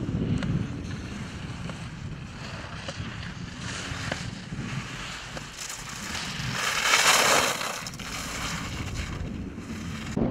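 Wind buffeting the microphone over rushing water, with a louder surge about seven seconds in.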